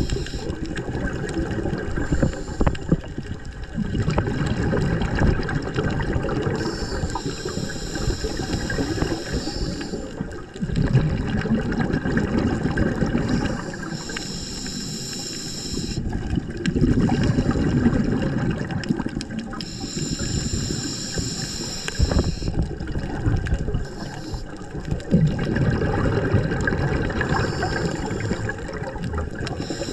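Scuba diver breathing through a regulator underwater, about four slow breaths: a high hiss on each inhale, then a low bubbling rush of exhaled air.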